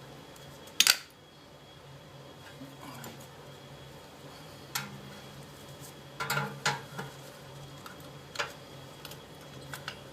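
Sharp metallic clicks and clinks of brake parts and tools being handled: one loud click about a second in, a quick cluster around six seconds in, and a single click past eight seconds.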